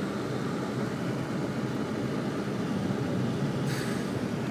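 Steady hum of a car driving slowly on a snow-covered road, heard from inside the cabin: engine and tyre noise. A brief hiss comes near the end.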